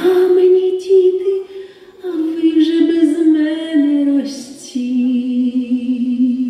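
A Ukrainian song with a voice holding long wordless notes that step down in pitch over a few seconds, wavering with vibrato on the last, lowest note.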